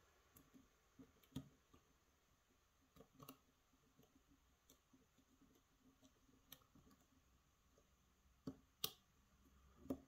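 Faint, irregular clicks and taps of a lock pick working the pin stacks inside a challenge lock cylinder, with two sharper clicks about a second before the end.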